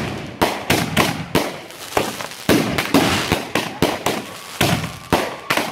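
Aerial fireworks bursting in quick succession, sharp bangs about three a second, with a spell of crackling about three seconds in.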